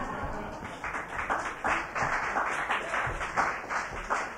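Audience applauding, a dense run of many hands clapping.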